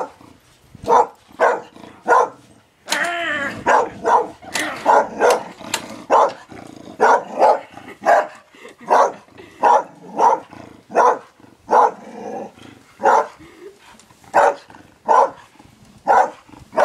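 A dog barking repeatedly, about one to two barks a second, with one longer drawn-out cry about three seconds in. It is barking at a lawnmower it takes for a threat.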